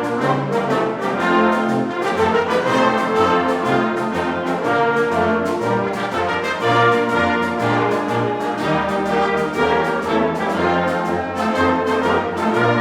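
Community concert band playing live, the brass section prominent: horns, trombones and trumpets holding full chords that change on a steady beat.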